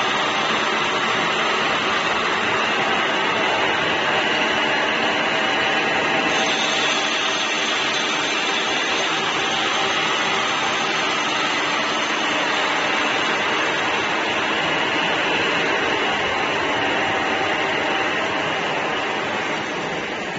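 Steady machinery noise: a continuous, even whir with faint steady tones in it, easing slightly near the end.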